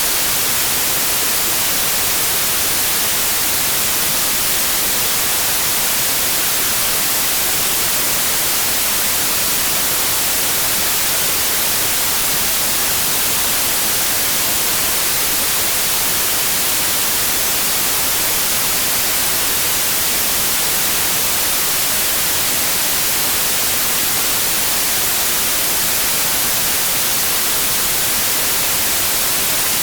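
Steady white noise: an even, unchanging hiss, bright in the treble, with no tones in it.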